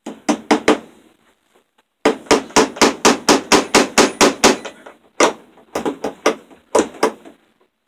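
Hammer driving cable staples into a wooden frame to fasten electrical cable: a few quick taps, then a fast run of about a dozen blows, about five a second, then a handful of scattered taps.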